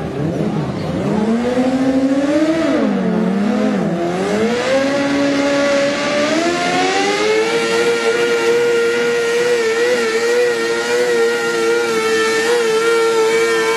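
Pulling garden tractor powered by two Suzuki GSX-R 750 inline-four motorcycle engines, revving and climbing in pitch with some wavering over the first several seconds, then held at steady high revs under load as it pulls down the track.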